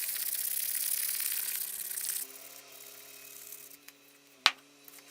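Sandpaper hissing against a birch workpiece spinning on a wood lathe, over the lathe's steady hum. About two seconds in the sanding stops, leaving only the lathe running, and a single sharp click comes near the end.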